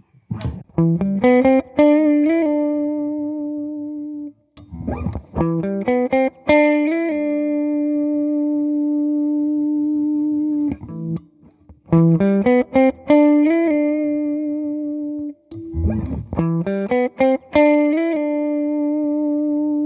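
Electric guitar (Electra MPC) played through its MPC-12 compressor module: four short runs of single notes, each ending on a long held note that sustains with little decay. The compressor squashes the attack of each note.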